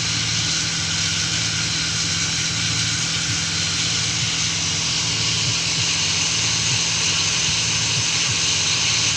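Homemade cotton candy machine running its spin test: the electric motor turns the spinner head with a steady hum and an even whirring hiss.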